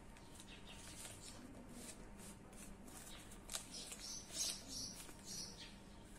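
Small birds chirping: a run of short, high chirps that grows busier and louder about halfway through.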